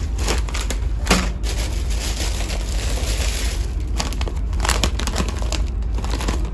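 Plastic packaging crinkling and rustling as gift items are unwrapped and handled, in scattered crackles, over a steady low hum.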